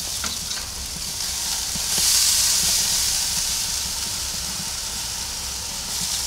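Beef flank steaks sizzling on the hot grate of a charcoal kamado grill: a steady hiss that swells about two seconds in, as one steak is lifted with tongs.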